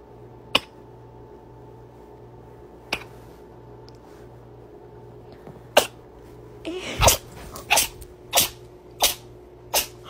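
A domestic cat sneezing in a fit: single sharp sneezes about half a second, three seconds and six seconds in, then a quick run of five, roughly two-thirds of a second apart, from about seven seconds on.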